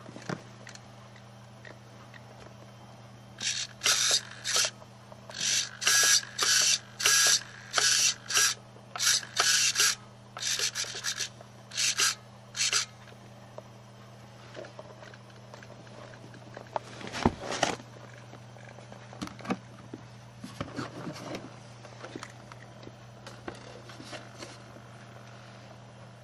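Radio-control servos in a vintage Tamiya Hornet whirring in a quick run of about fourteen short bursts as the transmitter sticks are worked. After that come scattered clicks and small knocks of handling, over a steady low hum.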